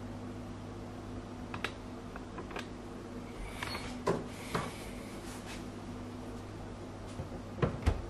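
Beko fridge door opened, with a few clicks and the rustle of the door coming free, then pushed shut with two knocks near the end. A steady low hum sounds throughout.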